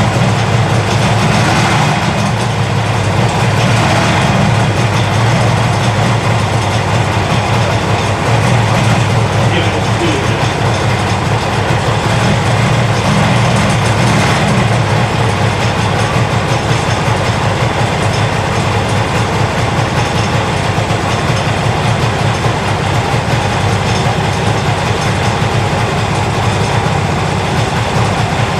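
1972 Kawasaki S2 350's three-cylinder two-stroke engine idling steadily just after starting, with the middle (number 2) cylinder still not firing despite new spark plugs.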